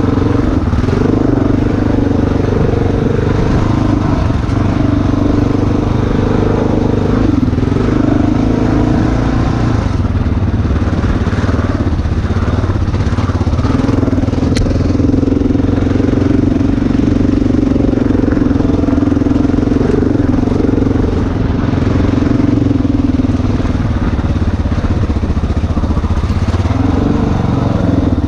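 Dirt bike engine running under way, a steady drone whose note shifts a few times with throttle.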